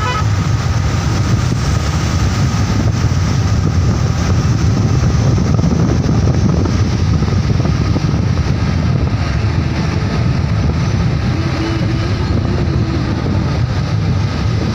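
Steady drone of a vehicle on the move, with wind buffeting the microphone.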